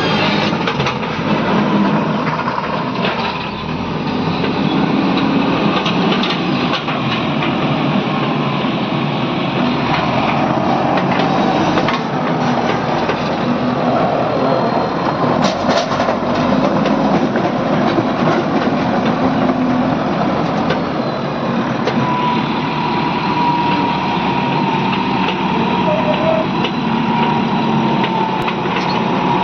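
Diesel engine of a JCB 3DX backhoe loader running steadily while working, with a few short knocks. A thin high steady whine joins in during the last third.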